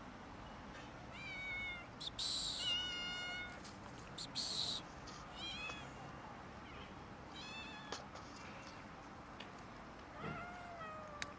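Cats meowing: about five separate calls, some high and thin, the last one lower and falling in pitch near the end. Two short, loud hissing bursts come in the first half.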